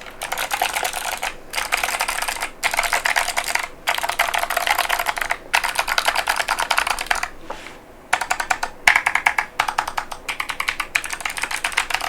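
Fast typing on an iROK FE104 mechanical keyboard with clicky Kailh Box Pink switches and PBT Cherry-profile keycaps: rapid runs of sharp clicks broken by short pauses, with a longer pause a little past halfway.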